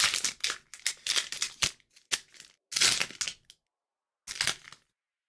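Foil booster-pack wrapper crinkling and crackling as it is crumpled and handled, in irregular bursts that stop shortly before the end.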